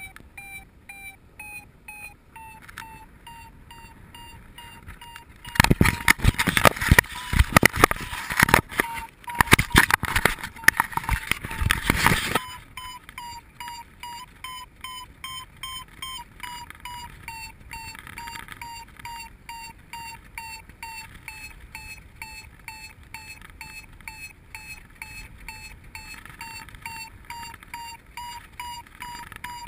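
Paragliding variometer beeping steadily at about two to three short beeps a second, the climb tone that signals the glider is rising in lift; the beeps step up in pitch a few seconds in. From about 5 s to 12 s loud wind buffeting on the microphone covers them.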